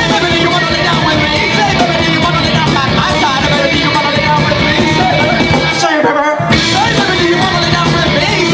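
Live rock band playing loud and dense, with a brief half-second stop about six seconds in.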